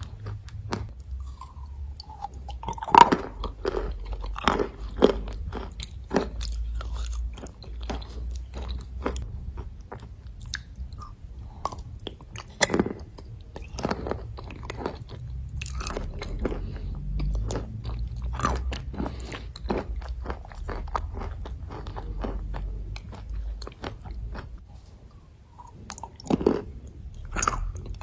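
A person chewing and biting white clay, with irregular sharp crunches throughout, the loudest about three seconds in, around thirteen seconds in and near the end.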